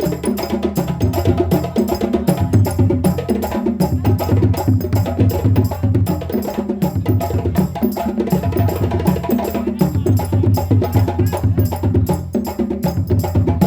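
West African drum ensemble, djembe and drums, playing a fast, dense rhythm with a repeating low drum pattern underneath.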